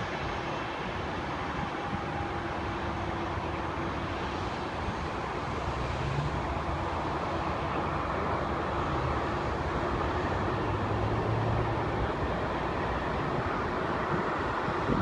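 Steady distant roar of engines around an airport, swelling slightly about halfway through.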